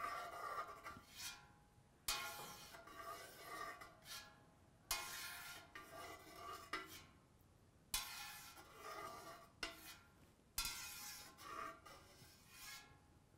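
A metal curd knife drawn through set curd in a large stainless steel pot, scraping against the pot with a faint metallic ring. It comes in strokes about every three seconds, five in all, as the curd is cut into pieces.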